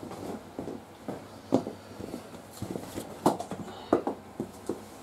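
Irregular light clicks and knocks from work on the motorcycle, sharpest about a second and a half in and twice more between three and four seconds.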